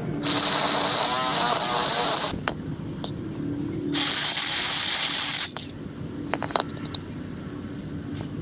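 Cordless drill boring a hole through a wooden board, in two runs: about two seconds at the start, then again for about a second and a half from four seconds in, with small handling clicks between.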